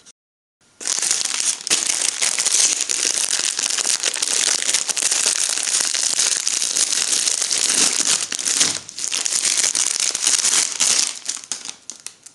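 Plastic packaging bag crinkling as it is handled and pulled open by hand, with a short pause about nine seconds in.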